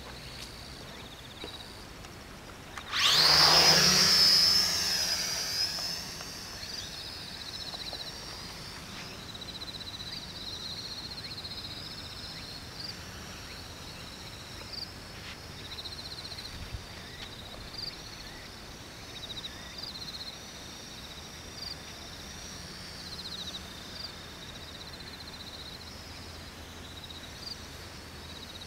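Small radio-controlled X400 aircraft's electric motors spinning up about three seconds in, a loud whine climbing fast in pitch as it takes off. It then fades to a faint high whine that wavers up and down in pitch while the craft flies at a distance.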